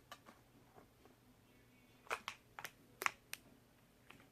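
Light clicks and taps from handling an empty box, about six short ones in the second half.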